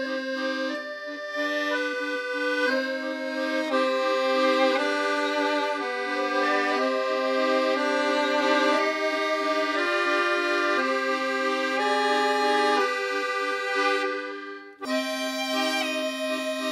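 Accordion music: sustained chords that change about once a second, with a short break near the end before it picks up again.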